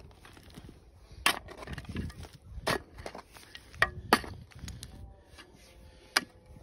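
Steel shovel working stony soil: sharp crunching scrapes and strikes of the blade against earth and stones, several times a couple of seconds apart, with a low gritty rustle of soil between them.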